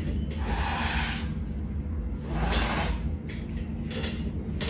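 Domestic cat hissing at a vacuum cleaner head, one long hiss then several shorter ones, over a low steady hum. It is a defensive hiss from a cat afraid of the vacuum.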